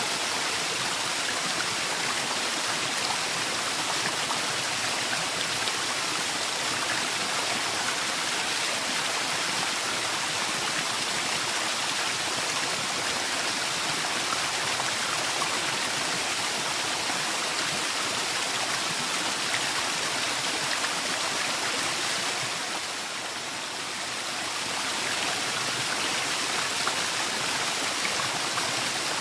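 Waterfall: a steady rush of falling water. It dips slightly in level for a couple of seconds about three-quarters of the way through, then comes back.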